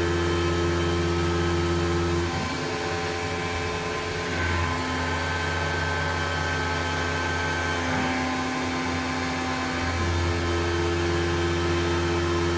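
Grizzly G0704 benchtop mill converted to CNC, milling a part with an end mill under flood coolant. Its spindle and axis motors whine in steady tones that shift pitch every two to three seconds as the toolpath changes direction, over a hiss of spraying coolant.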